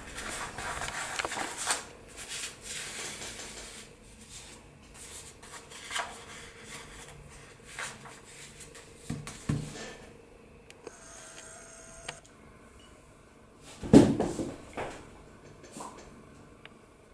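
Sheets of paper being rustled and laid down on the table, with brass paperweights set on them in a few soft knocks. The loudest moment is a thump and rustle near the end.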